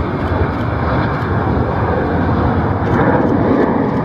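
Airbus A330 twin-jet airliner's engines at takeoff thrust as it lifts off and climbs away: a loud, steady jet roar that swells a little about three seconds in.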